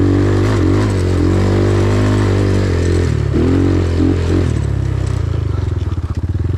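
Hengjian CB250's single-cylinder four-stroke dirt-bike engine pulling up a steep climb, its revs rising and falling with the throttle. About four and a half seconds in it drops to a slower, even chugging beat.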